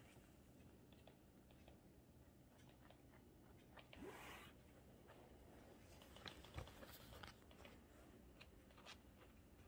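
Near silence: room tone with a few faint clicks and a brief soft rustle about four seconds in.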